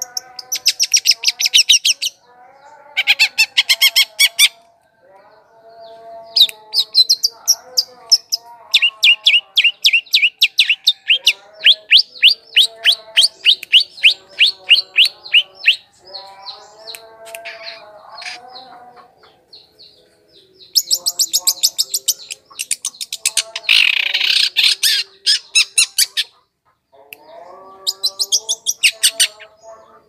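Shrike (cendet) song: bursts of very fast, high chattering trills lasting a few seconds each, interleaved with lower warbled notes, with brief pauses between phrases.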